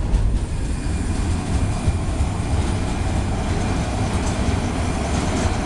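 Freight train's covered wagons rolling past on steel wheels: a steady low rumble of wheels on rail as the tail of the train goes by.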